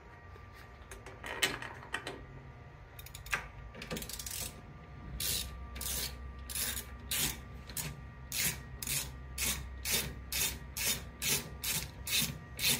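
A 10 mm ratchet wrench backing out a long cover screw, rasping on each back-swing. It starts with a few scattered scrapes, then about five seconds in settles into a steady rhythm of about two strokes a second.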